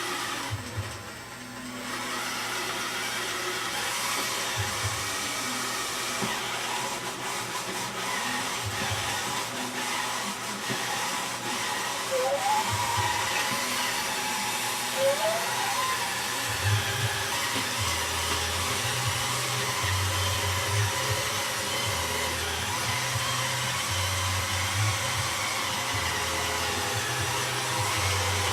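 Roomba robot vacuum running with a steady whir, its level swelling and dropping as it moves about. Two short rising squeaks are heard around the middle.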